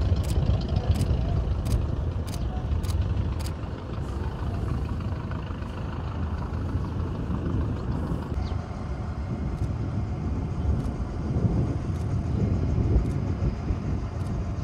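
A vintage biplane's engine throttled back as it lands, heard as a low rumble mixed with wind noise. A run of sharp clicks, about every half second, comes in the first few seconds.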